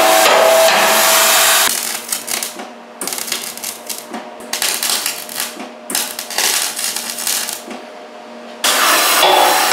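Oxy-fuel gas torch hissing steadily while it heats steel red-hot, cutting off after about a second and a half. Then an electric welder crackles in several short runs, tacking steel plates, over a faint steady hum. The torch hiss comes back near the end.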